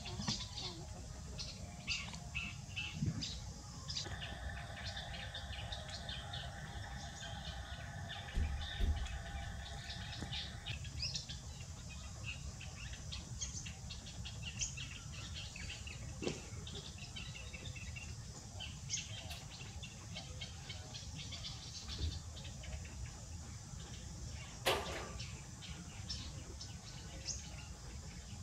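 Birds chirping with many short, scattered high calls over a steady low background rumble, with a sharp click about 25 seconds in.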